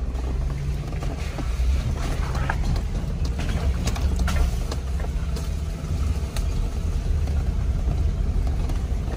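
Jeep Wrangler driving slowly over a dirt and gravel trail, heard from inside the cabin. A steady low engine rumble runs under tyre noise, with scattered sharp clicks and rattles from the rough ground.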